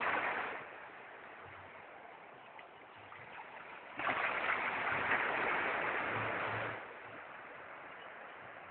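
Rushing water with a steady hiss. It is louder for a moment at the start, then steps up suddenly about four seconds in and stays louder for nearly three seconds before dropping back.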